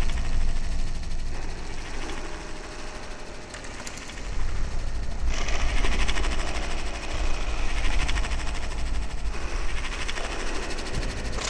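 Noisy electronic drone from Eurorack modular synthesizer patches layered with iPad found sound: a deep, steady rumble under a wash of noise. A bright hiss swells in about halfway through.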